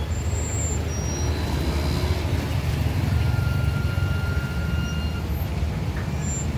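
Motorcycle and car engines running as vehicles move on and off a river ferry's loading ramp, over a steady low rumble.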